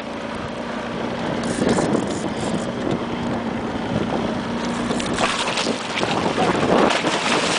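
Small fishing boat's engine running with a steady hum, under wind on the microphone and water washing against the hull. In the last few seconds the water noise grows rougher with splashing and knocks as the fish is brought alongside.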